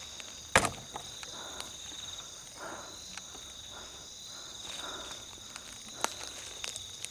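Night insects, crickets among them, trilling steadily in two high-pitched bands. About half a second in comes a single sharp snap or knock, the loudest sound. Later there are a few soft rustles and light clicks.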